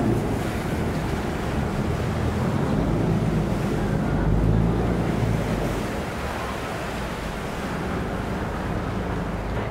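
Canal passenger boat's engine running at the pier, a steady low rumble with water churning around the hull; the rumble is heaviest for the first five or six seconds, then eases a little.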